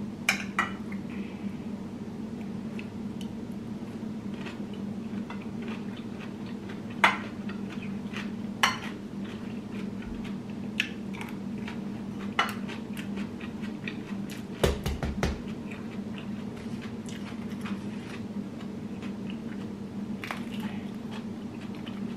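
A spoon clinks and scrapes against a ceramic rice bowl while someone eats, giving sharp taps every few seconds, with a quick cluster of clicks partway through. A steady low room hum runs underneath.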